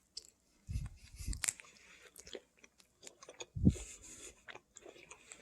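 A person chewing food close to the microphone: soft wet mouth clicks with a few low thuds.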